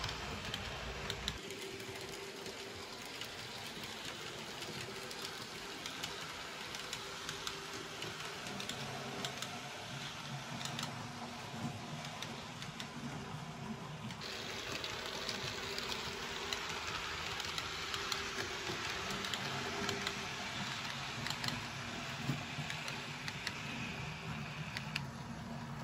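H0 scale model train, a Roco class 35 steam locomotive model hauling double-deck coaches, running along the layout's track: a steady whir of the small motor and rolling wheels, with occasional faint clicks. The sound changes abruptly about a second and a half in and again about halfway through.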